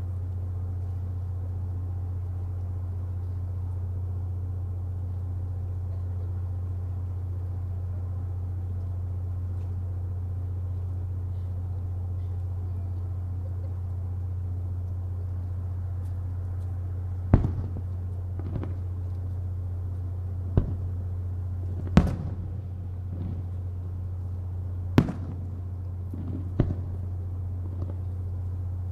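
Fireworks: a steady low hum, then, a little past halfway, about half a dozen sharp single bangs of shells launching or bursting, one to three seconds apart.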